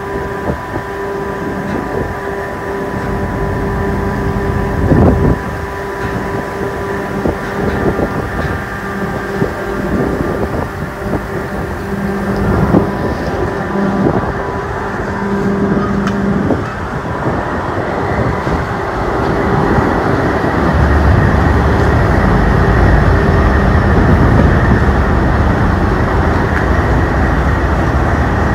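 Ferry engine droning steadily, heard on board, with a few knocks in the first half. About two-thirds of the way through it grows louder and deeper.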